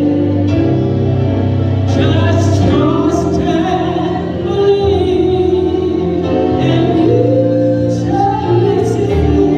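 A slow gospel song: singing over held instrumental chords with sustained bass notes.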